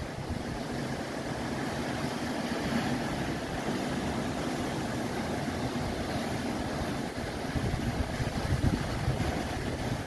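Ocean surf washing steadily over and between shoreline rocks: an even rushing noise with a low rumble underneath.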